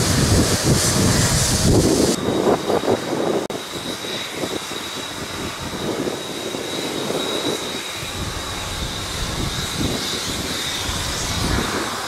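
Wind buffeting the microphone in gusts with a low rumble. About two seconds in the sound drops to a quieter, steadier wind noise with a faint thin high whine, and it stops abruptly at the end.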